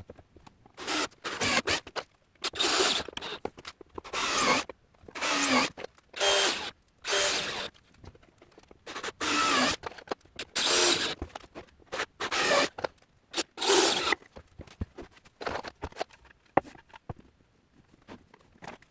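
A dozen or so scraping strokes in a steady back-and-forth rhythm, each about a second long, stopping about fourteen seconds in and followed by a few light ticks.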